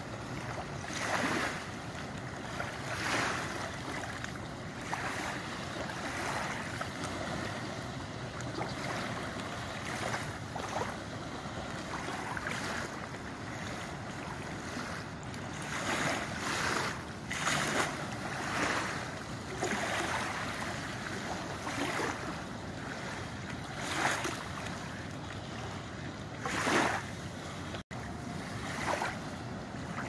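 Small waves lapping onto a gravel shore, swelling and fading every second or two over a steady hiss of wind.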